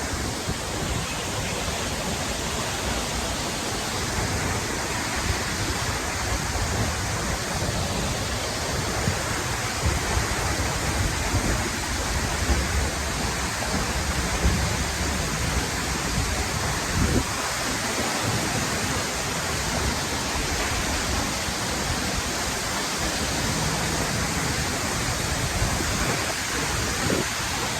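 A waterfall crashing onto rocks close by: a steady rushing of falling water, with an uneven low rumble underneath.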